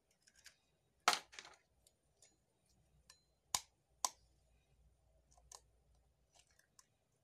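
Metal spoon tapping on a raw egg's shell to crack it: a few sharp taps, the loudest about a second in and two more around three and a half and four seconds, with lighter clicks of shell and spoon between.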